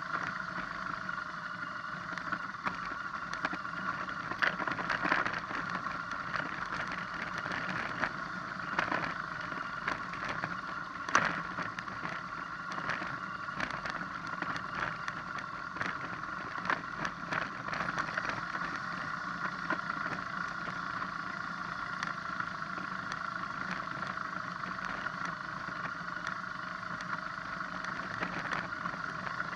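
BMW R1200GS boxer-twin engine running steadily while the bike rolls down a loose gravel track, with tyres crunching over rock and scattered knocks and rattles as it jolts, the sharpest about eleven seconds in.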